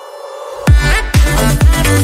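Background electronic dance music: a short rising build-up, then a heavy kick-drum beat drops in about two-thirds of a second in, with strikes roughly twice a second.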